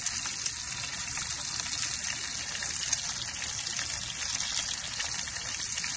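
Seared tuna steaks sizzling in hot coconut oil in a cast iron skillet: a steady hiss of frying with a few small pops.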